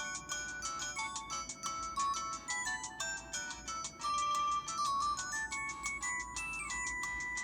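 Built-in ringtone of a Samsung Anycall SPH-W5200 phone playing: a quick electronic melody of short, bright notes, with a few longer held notes near the middle and end.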